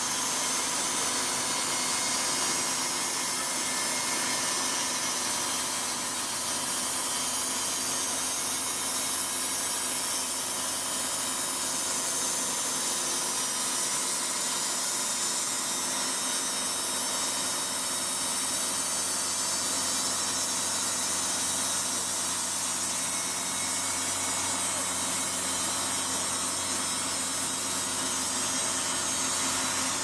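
Portable band sawmill running, its band blade cutting lengthwise through a large log as the saw head travels along it: a steady, even machine noise with faint steady tones.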